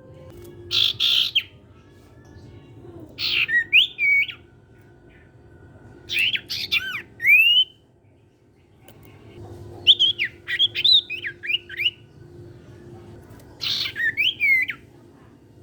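Sirtu songbird singing in short, vigorous phrases of quick chirps and rising and falling whistled sweeps, a phrase every two to three seconds, some opening with a harsh squawk-like note. A faint steady hum runs underneath.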